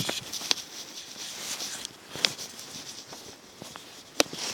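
Footsteps scuffing down over rocks and through weeds, with three sharp taps, the loudest near the end.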